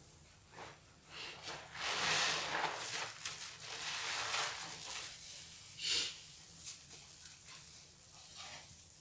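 A soap-foam-laden sponge squeezed by hand several times, the foam hissing and squelching with each squeeze. The loudest squeeze comes about two seconds in, with a short sharp one near six seconds.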